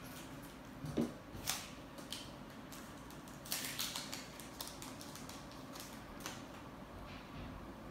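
Foil Pokémon card booster pack being handled and torn open: scattered sharp crinkles and crackles of the wrapper, the loudest about a second in and a cluster near the middle.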